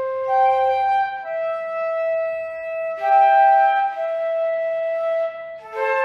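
Two transverse flutes playing a slow duet in harmony, with long held notes that change in steps and move more quickly near the end.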